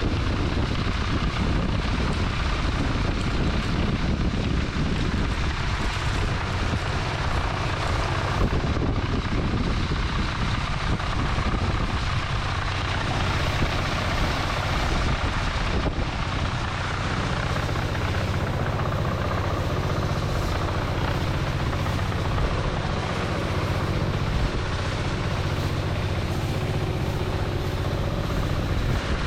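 Engine-driven rice blower (winnowing fan) running steadily as harvested rice is cleaned of dirt, stems, leaves and stones.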